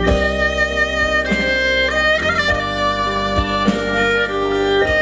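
Instrumental background music with a melody carried by a violin.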